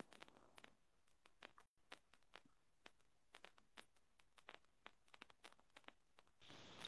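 Near silence: faint room tone with scattered faint clicks at irregular intervals.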